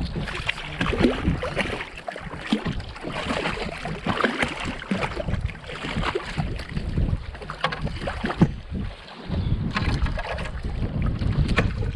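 Water splashing and lapping against a kayak hull, with wind buffeting the microphone.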